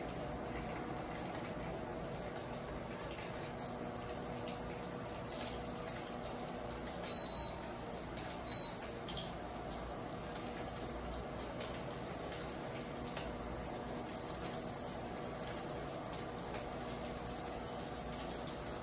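Steady low hum and hiss, with two short high beeps about seven and eight and a half seconds in.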